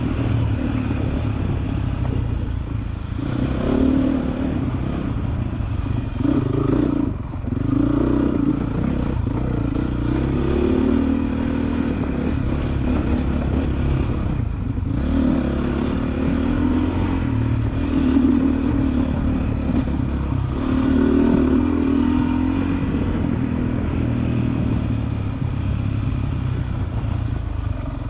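2013 Honda CRF450R's single-cylinder four-stroke engine under way on a dirt trail, its revs rising and falling again and again as the throttle is worked, briefly dropping off twice.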